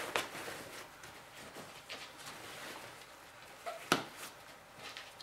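Faint rustling and handling of a hunting backpack and its straps, with one sharp click about four seconds in.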